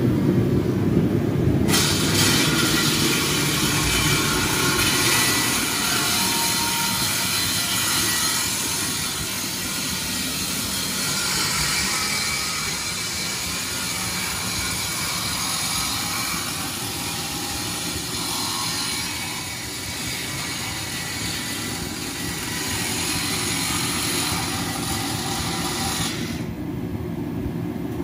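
Steady, loud low rumble of workshop machinery, with a loud rushing hiss that starts suddenly about two seconds in and cuts off suddenly near the end.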